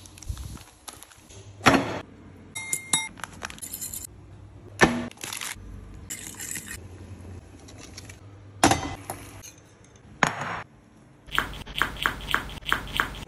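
Metal spoon and chopsticks clinking and scraping against bowls while food is mixed and served: separate sharp clinks, a few with a short ringing tone. Near the end comes a quick run of evenly spaced taps, about three a second.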